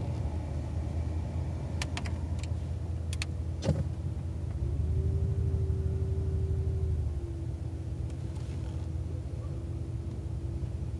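Truck engine running, heard from inside the cab as it pushes a large round hay bale, its note rising and getting louder for a couple of seconds from about five seconds in as it works harder, then settling back. A few light clicks and one sharp knock come a little before the engine picks up.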